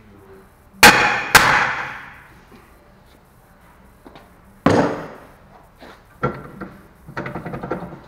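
Hammer blows on metal: two hard ringing strikes about a second in, half a second apart, and a third near the middle, each ringing out. Lighter clanks and a rattle follow near the end.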